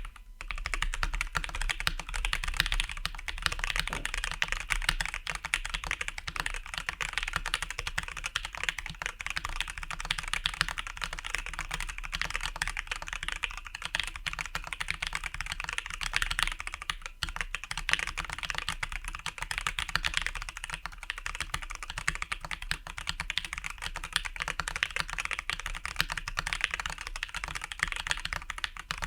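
Continuous fast typing on an acrylic-cased Arisu (Alice-layout) mechanical keyboard, with lubed and filmed Durock Koala and Everglide Oreo tactile switches under PBT keycaps. The keystrokes come as a steady stream of dense clicks and clacks.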